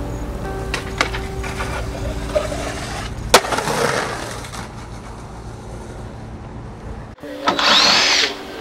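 Skateboard on concrete: a steady low rumble with a few light clacks, then a loud sharp crack of the board about three seconds in, followed by rolling. After an abrupt cut near the end, a power drill whirs for about a second.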